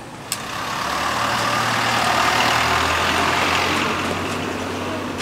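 A motor vehicle passing by: its engine noise swells up over about two seconds and fades away again, over a low engine hum that cuts off suddenly near the end.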